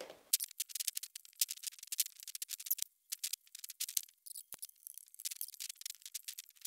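Rapid, irregular light clicking and crackling of a stainless steel wire-mesh roll being squeezed tight by hand and bound with plastic cable ties, with a pause of about a second near the middle.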